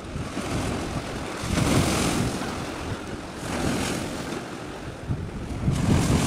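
Wind buffeting the microphone in gusts over the wash of sea waves, swelling about every two seconds.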